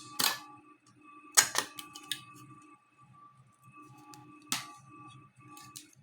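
Sharp plastic clicks and snaps as laptop case parts are handled and pried apart, the loudest about a second and a half in, over a faint steady hum.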